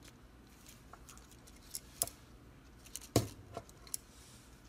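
Small metallic clicks from a Copal-type flip-clock mechanism being handled and advanced. There are a few sharp clicks, the loudest about three seconds in, as a minute leaf flips over.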